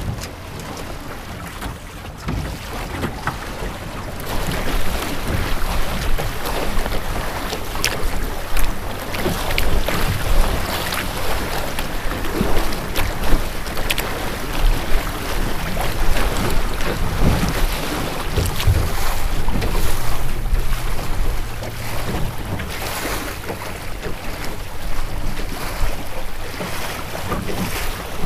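Water rushing and splashing against the hull of a small Melonseed sailing skiff driving through choppy water, with wind buffeting the microphone. It gets louder about four seconds in.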